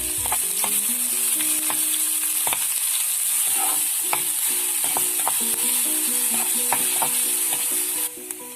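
Chopped onion sizzling in hot oil with cumin and curry leaves in a kadai, stirred with a spoon that scrapes and knocks against the pan now and then. The sizzle drops away sharply about eight seconds in.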